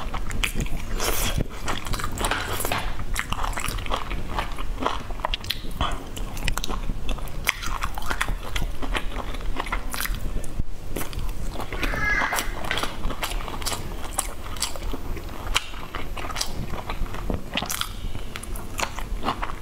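Close mouth sounds of someone eating skewered grilled sausage and vegetables: biting, crunching and wet chewing, with dense crackly clicks throughout.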